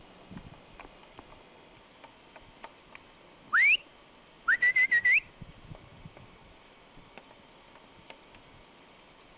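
Two loud whistled notes, about a second apart. The first is a quick upward slide; the second rises and then wavers in a short trill before a final upturn.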